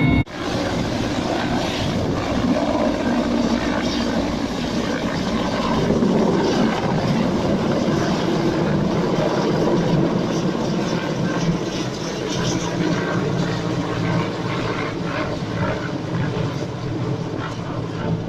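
Helicopter flying nearby, its rotor and engine making a steady, dense noise.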